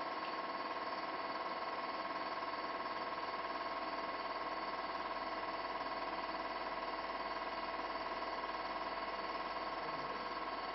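Steady electric hum and whine made of several held tones, unchanging in level, from a film projector running while the silent cine film plays.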